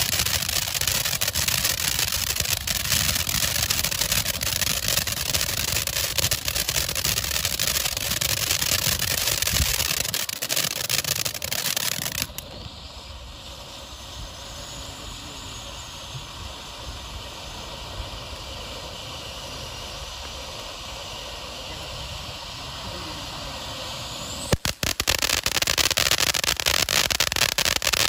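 Golden triangle ground fountain firework spraying sparks with a dense, rapid crackle. About twelve seconds in the crackle drops suddenly to a quieter, smoother hiss, and near the end the loud crackling starts again.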